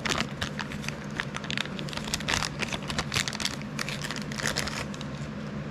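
Plastic packaging crinkling and rustling in irregular bursts as a new replacement part is unwrapped, over a steady low hum.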